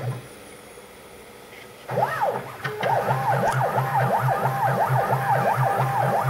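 Stepper motors of a home-built aluminium 3-axis CNC router driving its ball screws through a test G-code program of circles and drilling. From about two seconds in, a whine glides repeatedly up and down in pitch over a steady tone and a low pulsing hum.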